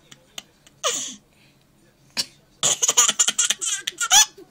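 A person laughing: a short breathy outburst about a second in, then a fast run of giggling bursts in the second half that ends on a rising squeal.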